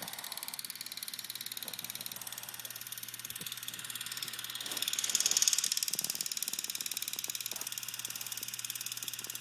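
Boston terrier puppy snoring while asleep, a steady raspy breathing that swells into one louder snore about five seconds in.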